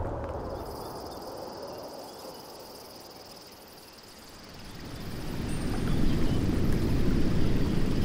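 Forest ambience with a steady high-pitched insect drone, while a low wind rumble fades away at first. From about halfway the rush of a waterfall swells in and grows steadily louder.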